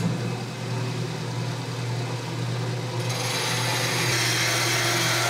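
Horizontal metal-cutting bandsaw running, its blade sawing through a metal pipe at an angle for a saddle cut. A steady motor hum sits under the rasp of the blade, which grows louder about three seconds in.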